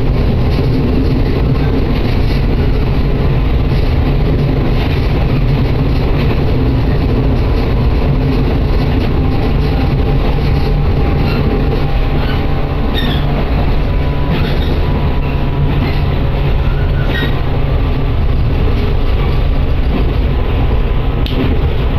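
Passenger train running, heard from inside the car: a loud, steady low rumble of wheels on rail, with a few sharp clicks and faint squeaks around the middle.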